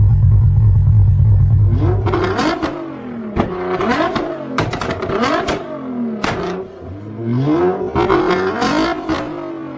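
Nissan GT-R's twin-turbo V6 revved hard again and again, its pitch rising and falling about eight times, with sharp exhaust pops and bangs cracking out as the revs drop: an exhaust tuned to backfire and shoot flames. For the first two seconds there is only steady low background music.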